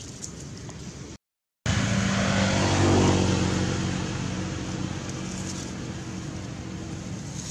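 A motor vehicle passing on the road: its engine hum comes in after a brief dropout in the sound, is loudest about three seconds in, then slowly fades away.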